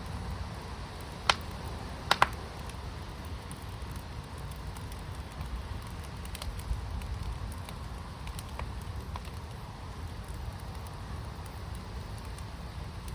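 Wood fire in an outdoor fire pit crackling, with a sharp pop about a second in and two more close together a second later, then smaller scattered snaps over a steady low rumble.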